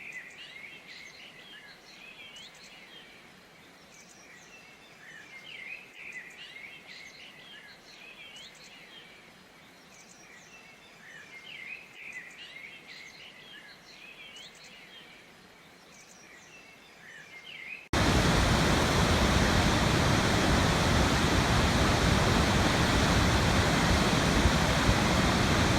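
Songbirds chirping and whistling in short repeated phrases, faint. About eighteen seconds in, this cuts abruptly to the loud, steady rush of a waterfall.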